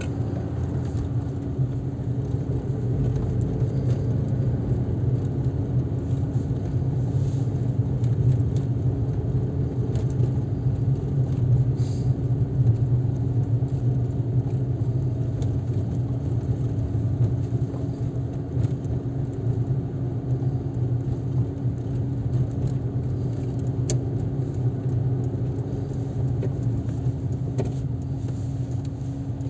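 A car driving along city streets, heard from inside the cabin. The engine and tyres make a steady low rumble, with a constant hum over it.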